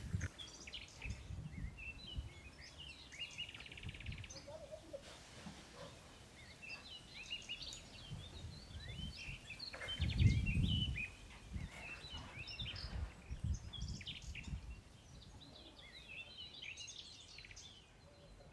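Small birds chirping repeatedly in short high notes, with soft low thuds and handling noise now and then, the loudest about ten seconds in.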